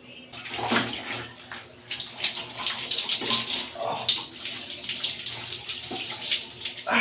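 Water poured from a plastic dipper over a man's head and body, splashing down onto him and the concrete floor, pour after pour.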